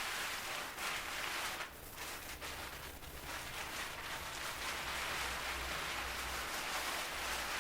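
Continuous crackly rustling of packaging being handled while digging through a bow box for its accessories, with a faint low hum underneath.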